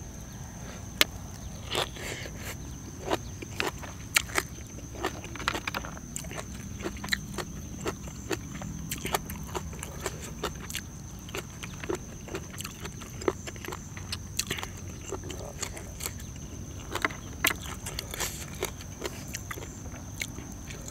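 Close-up eating: irregular crunching clicks and chewing, over a steady low rumble of wind on the microphone.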